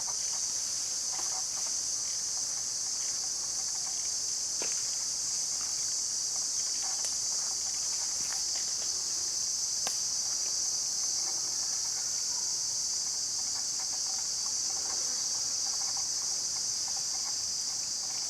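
Steady, high-pitched drone of a forest insect chorus, unbroken throughout, with a few faint clicks and snaps here and there.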